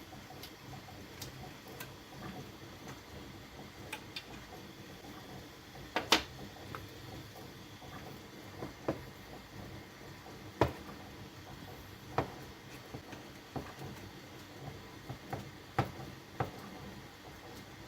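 Irregular clicks and knocks of 3D-printed plastic feeder parts being handled and fitted together while an M4 screw is driven in by hand, the loudest knocks about six and ten and a half seconds in.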